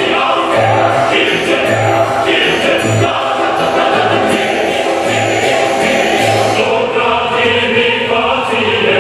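Dance music with a choir singing over a steady bass beat.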